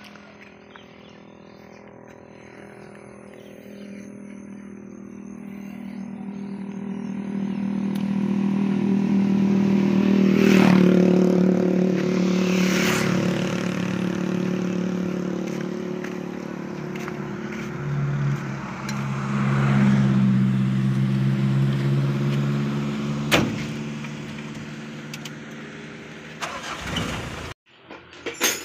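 Motor vehicle engine running with a low drone that swells over several seconds, eases, then swells again, dropping in pitch about two-thirds of the way through. There are a few sharp knocks, and the sound cuts off abruptly near the end.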